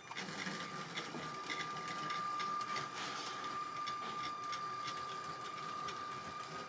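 Lego City 7939 cargo train running on plastic track: the locomotive's Power Functions train motor whines steadily, with quick irregular clicking from the wheels over the track joints.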